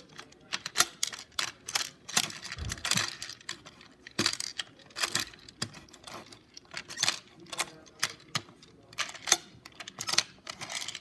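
Happy Meal toy packaging being handled and torn open: irregular crinkles and sharp clicks, with one dull thump about two and a half seconds in.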